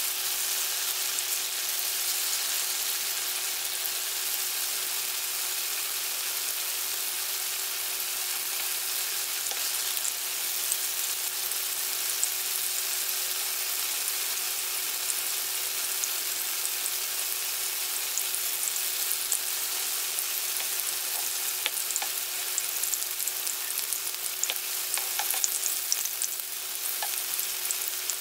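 Tofu slices shallow-frying in oil in a nonstick pan: a steady sizzle, with scattered pops and crackles that come more often in the second half.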